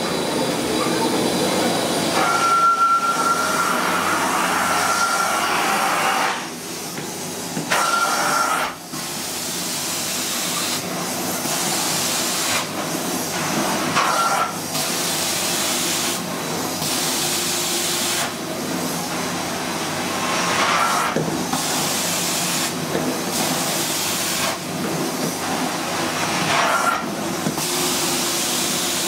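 An Airflex Storm portable carpet-cleaning extraction machine runs steadily while its wand works the carpet. A hiss dips out briefly every second or two with the strokes, and a short high whistle comes in a few times.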